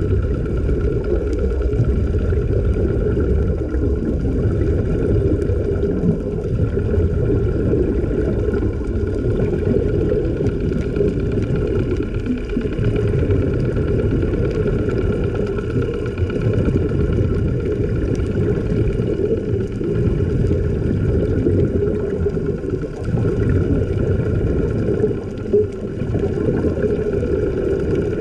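A steady engine drone, a low rumble with a constant hum over it, unchanging throughout.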